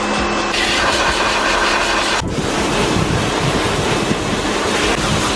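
Pressure washer jet spraying water onto a muddy tractor tyre and wheel, a steady loud hiss of spray. A low hum under it stops about two seconds in, where the spray sound changes.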